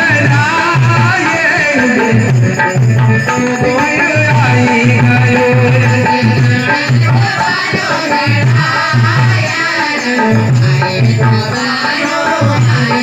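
Indian folk devotional music for Gangaur dancing: singing and melody over a steady, regular hand-drum beat.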